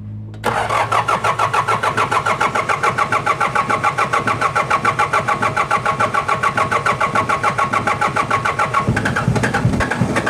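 Starter motor cranking a Mitsubishi 4D56 four-cylinder diesel, starting about half a second in, with a steady rhythmic chug of about nine beats a second as each cylinder comes up on compression. The engine does not catch despite glow-plug preheating: a hard start on an engine whose timing checks out fine.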